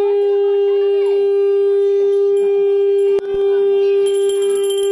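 A conch shell blown in one long steady note, broken briefly about three seconds in. A hand bell starts ringing near the end.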